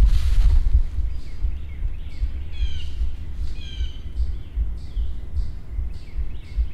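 A songbird singing two short phrases of high, falling notes about three seconds in, with fainter high chips around it, over a steady low rumble. A brief rustle of movement at the start.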